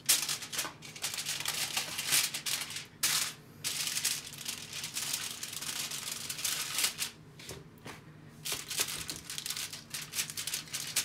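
Aluminium foil crinkling and crumpling as it is folded and pressed by hand into a sealed parcel, in bursts with short pauses.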